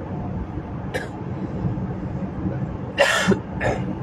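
Steady low rumble of a car, heard inside its cabin; about three seconds in a man coughs twice, short and sharp.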